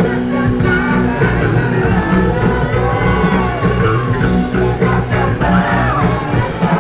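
A funk band playing live in concert, with a lead vocal sung over the full band.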